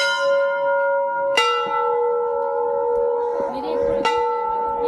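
Metal temple bells struck three times, each strike ringing on with a long, steady hum. The second strike rings a little lower than the first, as if from a different bell.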